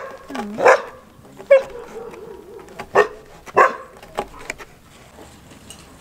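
A dog barking, about six separate barks spread over the first four and a half seconds, then stopping.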